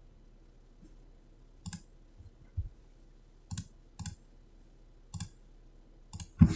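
Computer mouse clicking: several single clicks, spaced a second or so apart.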